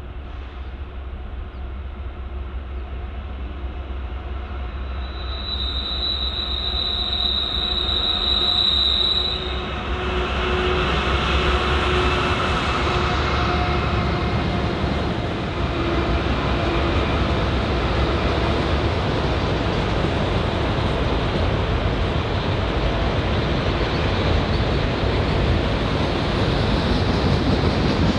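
A Norfolk Southern freight train passing close by. The low rumble of its locomotives grows louder over the first several seconds, and a high-pitched wheel squeal runs for about four seconds. After that the steady rumble and rattle of the train rolling past continues.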